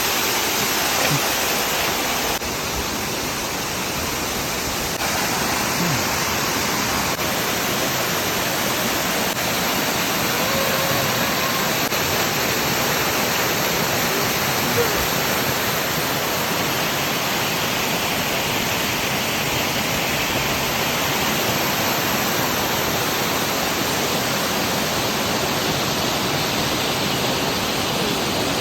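Steady rushing of falling water from the Goa Tetes waterfall, a dense, even wash of sound with no breaks.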